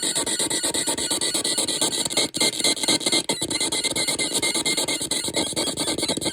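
Experimental electronic sound machine putting out harsh, rapidly stuttering noise with a few steady high tones running through it. It cuts out briefly about two and a third seconds in and again about a second later.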